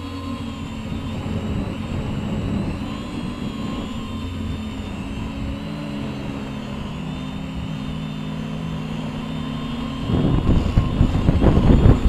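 A Diatone White Sheep quadcopter's four Avroto 770kv brushless motors spinning HQ 10-inch three-blade props, heard from the onboard camera. It is a steady hum with several pitches that drift up and down as the motors change speed. From about ten seconds in, loud gusty rumbling buffets the microphone and becomes the loudest sound.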